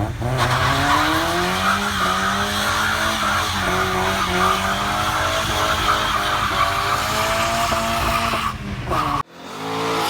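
A car engine driven hard, its pitch climbing, dropping at shifts and climbing again, with tyre squeal over it. It cuts off abruptly about nine seconds in, and another engine sound fades in.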